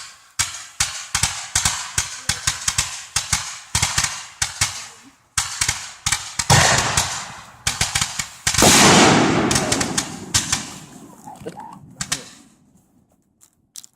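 Fireworks display bursting in rapid succession, several bangs a second, then two bigger booms with long crackling tails about six and a half and eight and a half seconds in, dying away after about twelve seconds.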